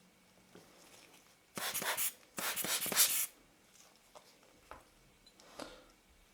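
A tissue being rubbed across a lens element's glass during cleaning, in two scratchy strokes about a second and a half in, followed by a few faint clicks from handling the lens parts.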